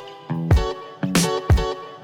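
Background music with a steady drum beat, kick and snare hits over sustained chords.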